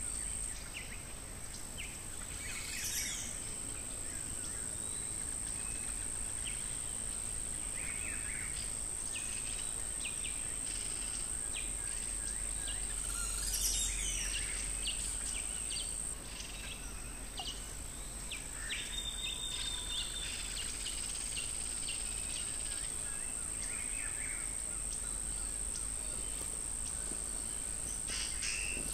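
Natural outdoor ambience: a steady, high-pitched insect drone with scattered short bird chirps over it. Two louder calls stand out, about 3 and 13 seconds in.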